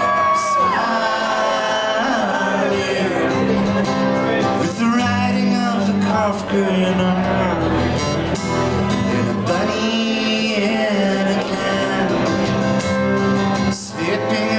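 Two acoustic guitars strummed and picked in a live acoustic song, with a man singing over them.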